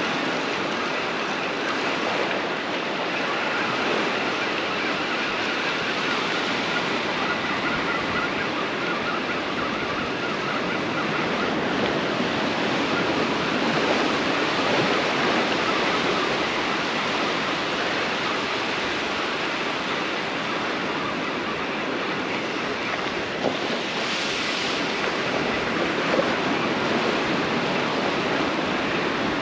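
Ocean surf washing onto the beach: a steady rushing wash that swells and eases, with a brief brighter hiss near the end.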